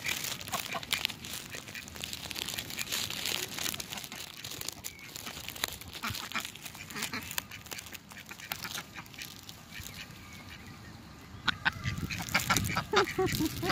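Domestic duck quacking: a quick run of loud quacks sets in about two-thirds of the way in. Before that there are only soft scattered clicks and rustling.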